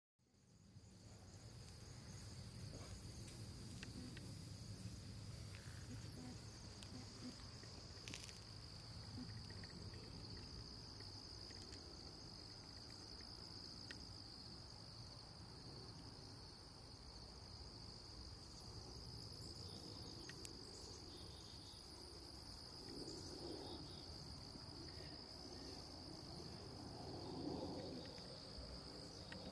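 Faint, steady insect trilling at one high, even pitch, like crickets, with a few faint clicks scattered through it.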